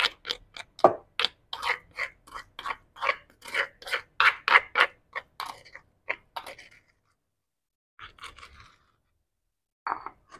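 Stone pestle pounding fried shallots and garlic in a stone mortar, about three to four strikes a second, stopping about two-thirds of the way through; a few short scraping knocks in the mortar follow near the end.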